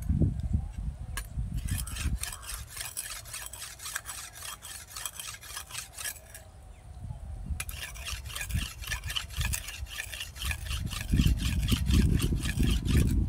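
A machete blade being sharpened on a stone, scraping and rasping in quick back-and-forth strokes. The strokes stop for a moment around the middle, then resume and grow louder near the end.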